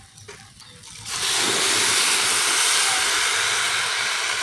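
Water poured in a steady stream into a large aluminium pot of rice, starting abruptly about a second in and running on as a continuous splashing hiss.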